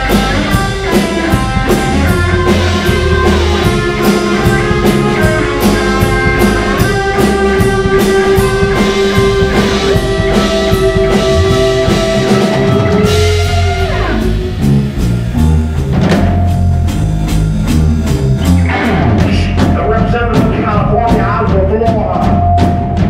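Live rock band playing: electric guitar, bass and drum kit, with a lead line on long held notes that slides down about halfway through.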